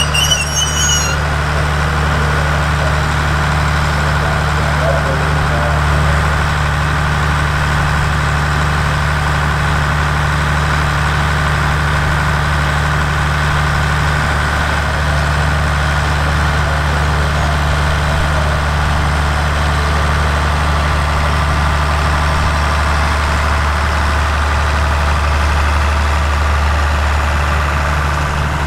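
Diesel engines of a Thai express passenger train idling with a steady low drone. A few brief high squeals come in the first second.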